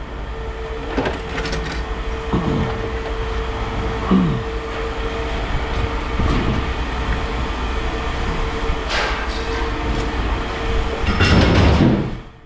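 Scrap metal being handled and dragged, with metal scraping and clanking over a steady machine hum, and a louder burst of clatter near the end.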